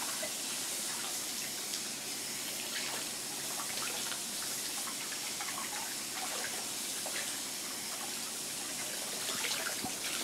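Tap running steadily into a washbasin while hands wash something under the stream, with small splashes and clicks throughout.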